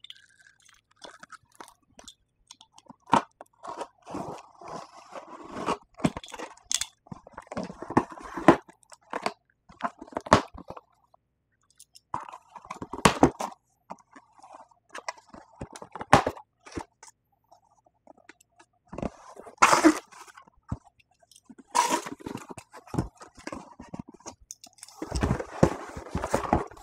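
Cardboard shipping box being opened and handled: irregular crunches, scrapes and rustles of the cardboard flaps, with a padded gig bag shuffled out of the box near the end.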